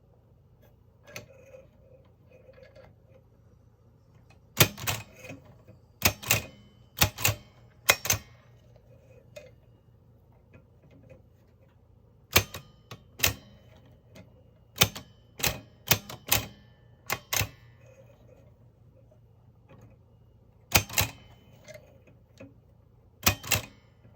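Mignon No. 4 index typewriter being typed: sharp metallic clacks as a letter is struck, in irregular runs of a few strikes separated by pauses of a few seconds, with faint ticks in the first seconds.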